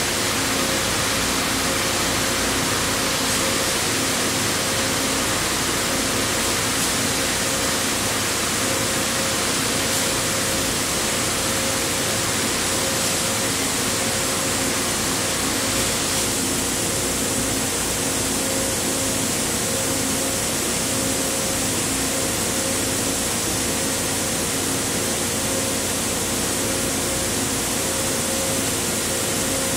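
Steady loud hiss of an automatic pallet changer on a CNC milling machine running in a machine hall, with a faint hum that breaks off and returns. The high part of the hiss eases slightly about halfway through.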